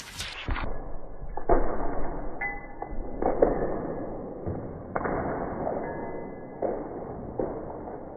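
A busy run of thumps and knocks over a steady noisy background, the loudest knocks coming about a second and a half, three and a half and five seconds in.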